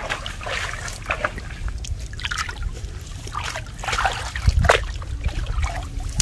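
Dry leaves and twigs crackling and rustling in irregular bursts as someone moves through brush and leaf litter, over a low rumble of wind on the microphone.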